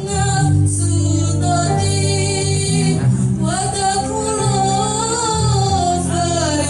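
Choir of mostly female voices singing a slow melody of long held notes over instrumental accompaniment with steady low notes.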